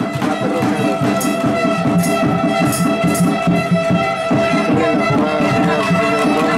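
Music with a steady beat and held tones.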